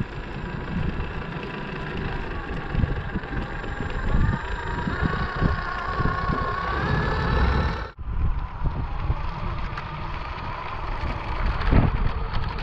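Electric drive motor and gearbox of a 1/14 scale RC tipper truck whining as it drives, the whine rising in pitch as it speeds up, over wind buffeting the microphone. The sound cuts off abruptly about eight seconds in and then carries on.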